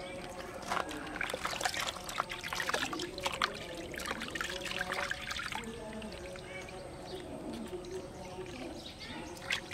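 Water being poured and splashed during a bath, with many small irregular splashes and trickles, busiest in the first half.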